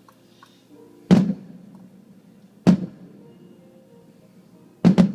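Fireworks shells bursting in sharp booms: one about a second in, another a little before the middle, then two in quick succession near the end.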